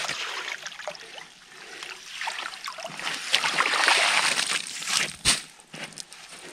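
Landing net scooping slush and ice chips out of a hole in lake ice, water sloshing and pouring back out through the mesh, building to its loudest about four seconds in. A single sharp knock a little after five seconds.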